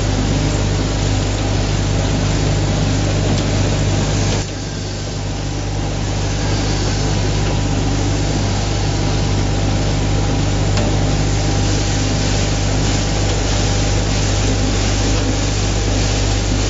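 Bucket conveyor running steadily: a constant mechanical hum with faint, regularly spaced ticks. The sound dips briefly about four and a half seconds in, then carries on.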